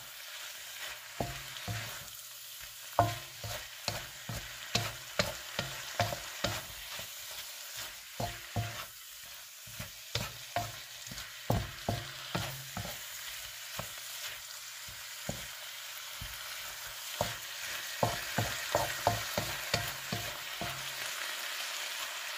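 Diced chicken frying with a steady sizzle in a nonstick pan while a wooden spatula stirs it, knocking and scraping against the pan in irregular clusters.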